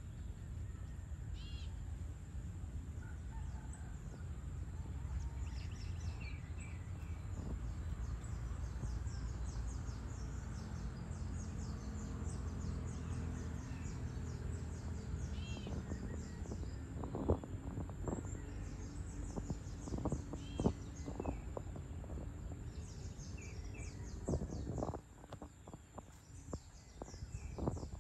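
Outdoor dusk ambience over a town: a steady low rumble, insects trilling in rapid pulses, and short bird chirps now and then. A few sharp clicks come in the second half.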